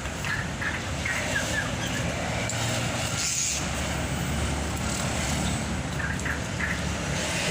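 A steady low rumble, like an engine or road traffic, with short faint bird chirps scattered through it and a brief hiss about three seconds in.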